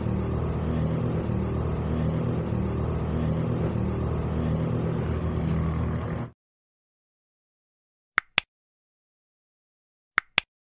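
A steady, loud rumbling hum like a running motor cuts off suddenly about six seconds in. After a silence come two pairs of quick mouse clicks, the click sound effects of a subscribe-and-bell button animation, the second pair near the end.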